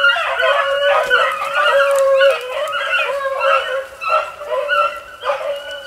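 A pack of beagles baying as they run a rabbit, several hound voices overlapping in a continuous chorus with short lulls.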